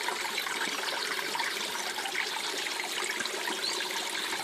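Small garden water feature running: a steady splashing trickle of falling water.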